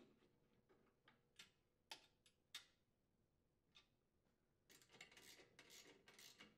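Near silence with faint, scattered clicks, then a quick run of soft clicking near the end from a socket ratchet being worked to tighten a mounting bolt.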